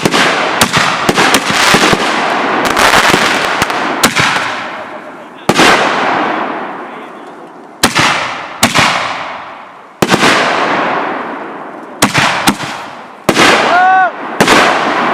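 Fireworks going off: a rapid string of sharp bangs for the first four seconds or so, then single bangs every one to two seconds, each fading away in a crackling tail. A brief tone that rises and falls comes near the end.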